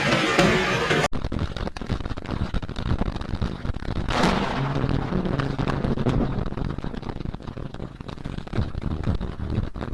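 Thunder from a close lightning strike: a sudden sharp crack about four seconds in that rolls off into a low, rough rumble.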